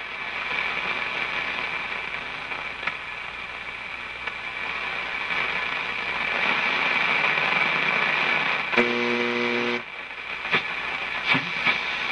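Monarch vacuum-tube radio receiving static between shortwave stations: a steady hiss, a short buzzing tone about nine seconds in, and a few crackles near the end.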